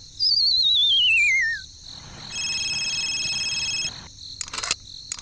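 Edited-in cartoon-style sound effects: a warbling whistle slides down in pitch for about a second and a half. Then a steady electronic tone chord holds for about a second and a half, followed by a few clicks near the end.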